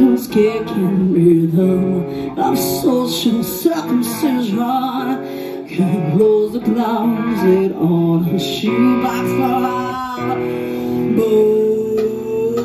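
Live rock band: a female lead vocal over electric guitar and bass guitar, played loud through the stage PA, with a long held note near the end.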